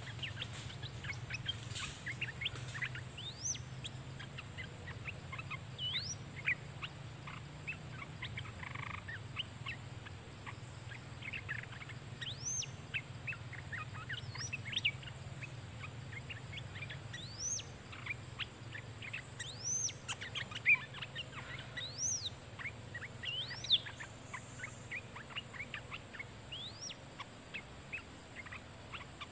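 Olive-winged bulbuls calling: repeated short whistled notes that sweep up and fall back, among quick scattered chattering notes, busiest in the second half.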